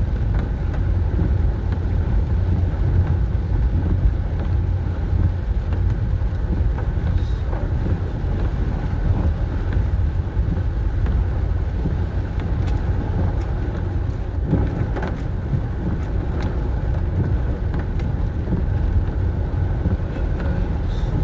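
Steady low rumble of a car running, with a few faint ticks scattered through it.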